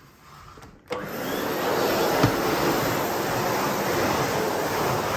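Philips Triathlon vacuum cleaner switched on about a second in, its motor quickly running up to a steady, loud suction noise. A short knock sounds about two seconds in.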